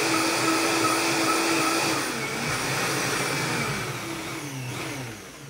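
Countertop blender running on a thick green smoothie with a steady whine, then switched off about two seconds in, its motor spinning down with falling pitch and fading over the next few seconds.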